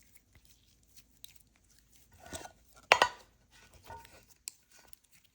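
Clear slime being handled and pressed in the hands, giving scattered soft clicks and small pops, with one sharper, louder click about three seconds in.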